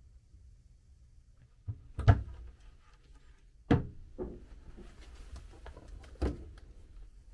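A wooden cabinet door and a minibar fridge door being opened by hand, giving a few sharp knocks and clicks: the loudest about two seconds in, others near four and six seconds.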